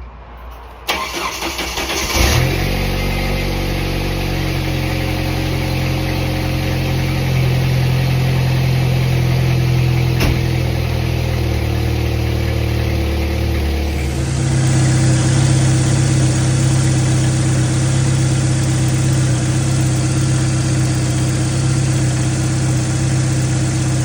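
1995 Jeep Wrangler YJ's 2.5-litre four-cylinder engine starting about two seconds in, then idling steadily. It runs on a shorter serpentine belt that bypasses the AC compressor, and the owner says it purrs with no shake. Its note shifts about fourteen seconds in.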